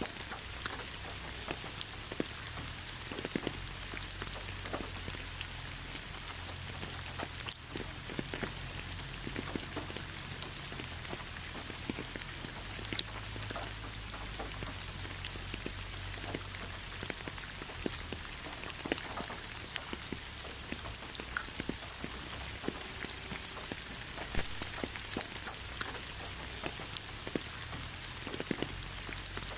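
Steady rain with many individual drops pattering on a hard surface, a continuous hiss dotted with small taps.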